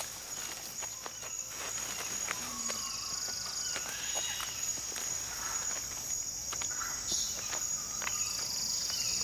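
Rainforest insects shrilling in a steady high drone, with scattered light rustles and clicks of movement in the leaf litter.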